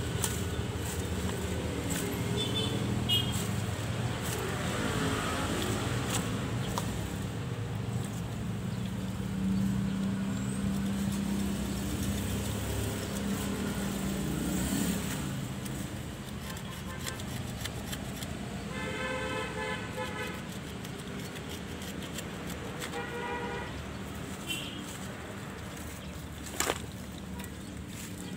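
Steady rumble of motor vehicles running, louder in the first half, with two short horn toots about two-thirds of the way through. Scattered light clicks and one sharp snap near the end come from tool work in soil and roots.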